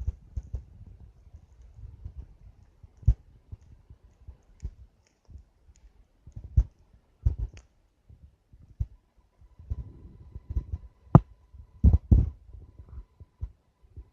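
Large wood campfire burning, crackling and popping at irregular intervals over a low rumble, with the loudest pops near the end.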